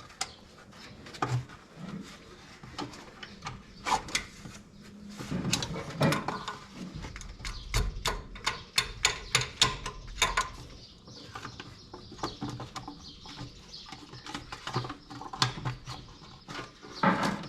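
Irregular metallic clicks, taps and clinks of hand work in the engine: small-block Chevy lifters being pushed down out of their bores onto cardboard in the empty cam slot.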